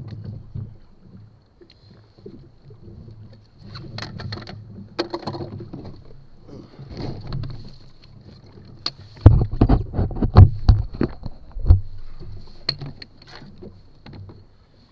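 Grey plastic tackle box being handled and opened on the floor of an inflatable boat: scattered light knocks, then a run of loud thumps and clicks about nine to twelve seconds in as the lid and latches are worked.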